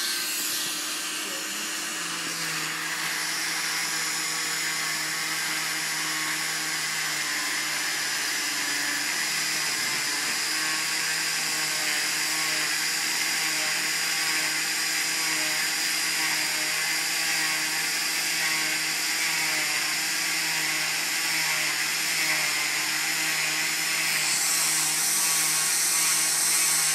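Electric oscillating cast saw running steadily with a high-pitched buzz and motor hum as it cuts through a fiberglass cast. It grows a little louder near the end.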